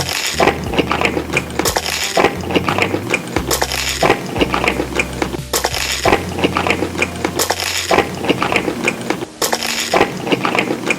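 Close-up crunchy chewing of crisp food, a dense crackle of small cracks with stronger crunches every second or two, over soft background music.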